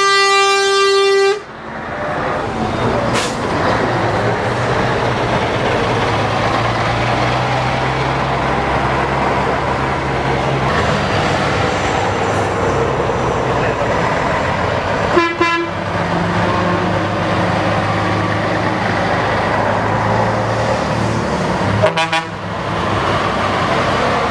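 Classic lorries driving past one after another, their diesel engines running steadily. A truck horn blasts at the start for about a second, then gives two short toots, about fifteen and twenty-two seconds in.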